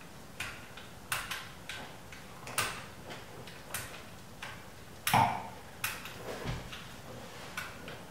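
Light irregular clicks and taps of small plastic toy pieces being handled and fitted together, with a louder knock about five seconds in.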